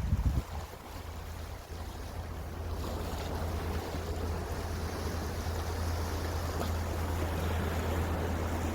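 Wind rushing over the microphone with the wash of sea waves, heard as a steady low rumble; a louder gust buffets the microphone at the very start.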